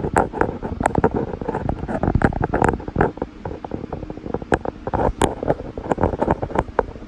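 Rapid, irregular knocks and rustling, loud and dense, with heavy low-end thumps.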